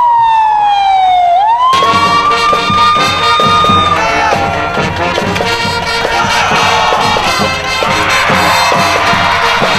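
A siren wail sliding down in pitch. About two seconds in, music with a steady beat cuts in, and a siren tone rises and holds under it for a couple of seconds before the music carries on alone.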